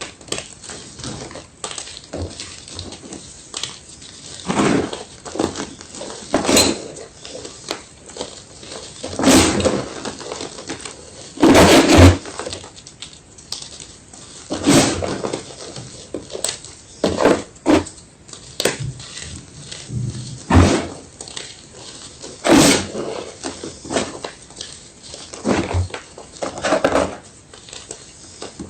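White gym chalk being crushed and crumbled: a run of irregular crunches of varying loudness, with the loudest a little before halfway.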